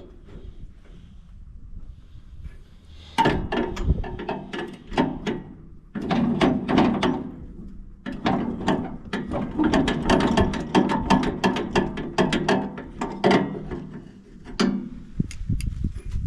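Ratchet wrench clicking in rapid runs, working bolts on a combine header: three stretches of fast clicking with short pauses between, after a quieter start.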